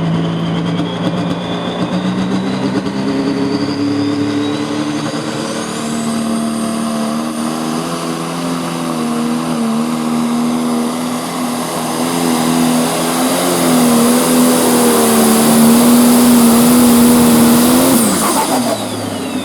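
Turbocharged diesel engine of a John Deere pro stock pulling tractor at full throttle, dragging the sled down the track, with a thin whine rising over the first few seconds. It runs steadily and gets louder toward the end. Near the end the engine note drops sharply as the throttle is cut, and the whine falls away.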